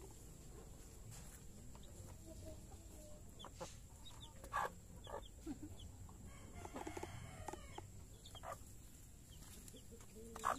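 Chickens clucking faintly in short, scattered calls, with a busier run of clucks a little past the middle.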